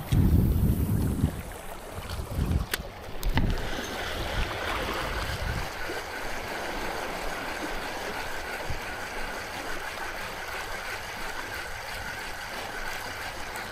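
Wind buffeting the microphone at first, then sea water lapping over shallow rocks. Two sharp clicks come a few seconds in, and a faint steady high hum runs under the water through the second half.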